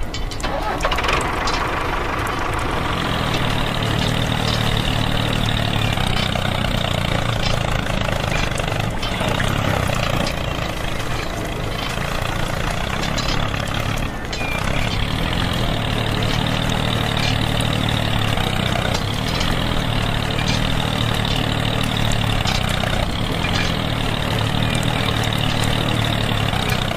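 Small tractor engine running steadily at idle, a constant low hum with little change in speed.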